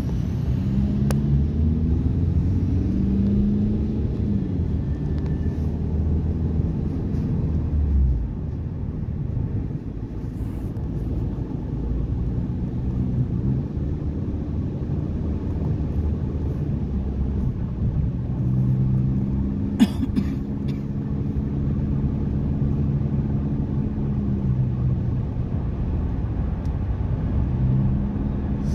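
Engine and road rumble inside a moving car's cabin, with the engine pitch rising and falling as it drives, and heavy trucks close by in the next lanes. A single sharp click comes about twenty seconds in.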